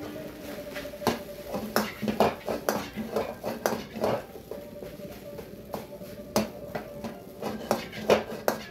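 Metal ladle scraping and clanking against a wok as fried rice is stirred and tossed: an irregular run of sharp knocks and scrapes, the loudest near the end.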